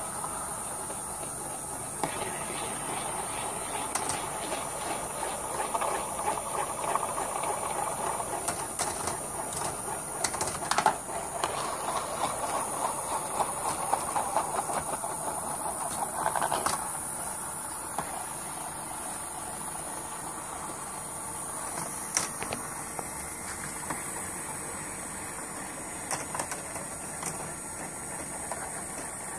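Small steel balls rolling and clattering along the plastic rails of a Bandai Spacewarp marble roller coaster: a continuous rolling rumble with scattered sharp clicks. It is busiest from about five to seventeen seconds in and then settles.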